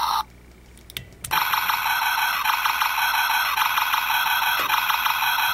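Transformers Armada Thundercracker toy's electronic sound chip playing a gun-firing sound effect through its small speaker, set off by pulling back the lever with the Mini-Con attached. A short tone cuts off near the start, and after about a second of quiet the firing sound comes in, repeating in falling bursts about twice a second.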